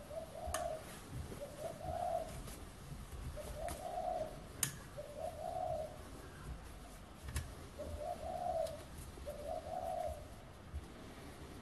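A dove cooing over and over, each coo about half a second long, repeating every second and a half to two seconds. A few sharp metallic clicks come from a tap wrench turning a tap to cut a thread in a steel block held in a vise; the loudest click is about four and a half seconds in.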